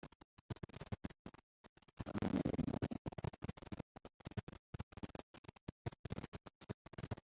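Faint, choppy crackling from the recording microphone, with a brief low vocal murmur about two seconds in.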